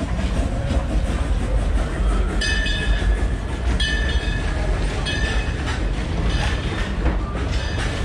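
Narrow-gauge steam train's passenger cars rolling past on the track with a steady low rumble and clickety-clack. About two and a half, four and five seconds in come three brief high-pitched squeals.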